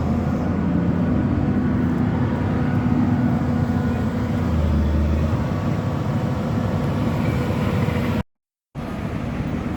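Engine running with a steady low drone. It cuts to dead silence for about half a second about eight seconds in, then resumes slightly quieter.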